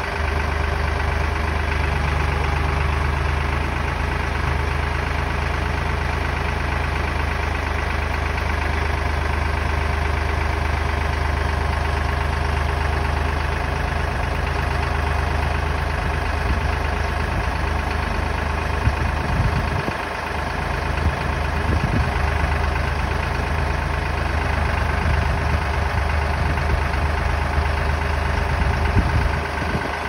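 An engine running steadily, its low hum dropping out briefly about two-thirds of the way through and then carrying on.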